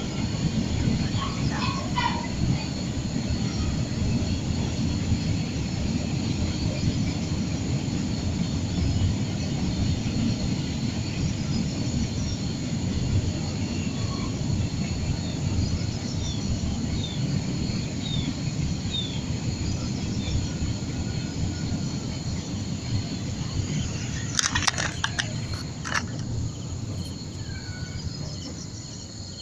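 Birds chirping and calling, with a run of short falling chirps in the middle, over a steady high insect drone. A loud low rumble runs under it and eases off near the end.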